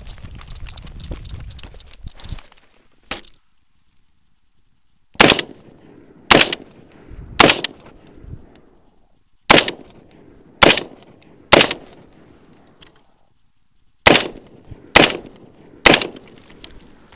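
AR-15 carbine with a BCM mid-length upper firing 5.56 mm rounds semi-automatically: nine loud shots in three strings of three, about a second apart within each string, each followed by a short echo.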